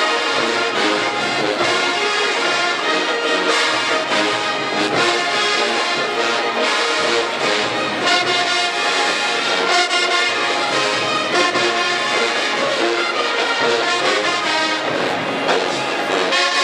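Large marching band playing loudly: massed brass, with sousaphones, trumpets and trombones, over drumline snares, bass drums and cymbals.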